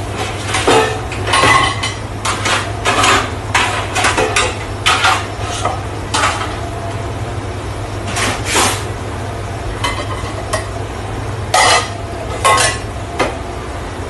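Stainless steel pans, bowls and plates clanking and clattering as they are handled and set into a dish rack, in quick irregular knocks, over a steady low hum of kitchen machinery.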